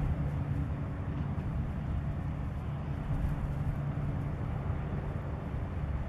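Inland cargo ship's diesel engine running with a steady low drone.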